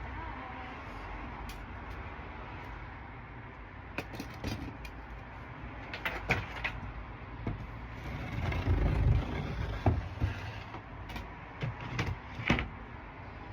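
Scattered clicks and knocks of hands and tools working on fittings inside a van's body, with a heavier cluster of low thumps about nine seconds in.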